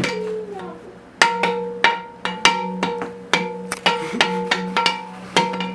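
Eggs being whipped in a bowl: irregular sharp clicks of the utensil striking the bowl, about two or three a second, starting about a second in, over a steady low hum.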